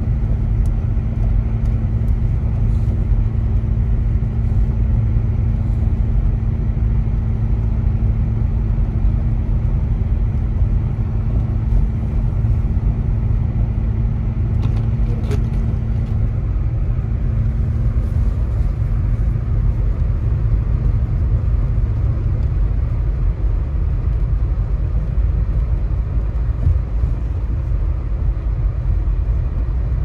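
Steady road and engine rumble heard from inside a Subaru driving at low speed along a slushy, snow-covered street, with a low hum that fades out a little after twenty seconds.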